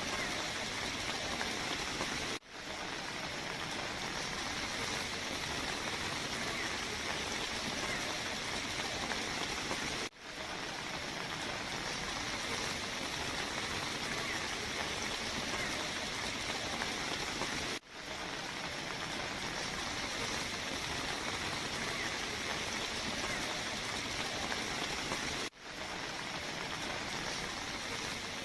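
A steady, even rush of water, the sound of heavy rain or floodwater pouring. It drops out for a moment about every eight seconds.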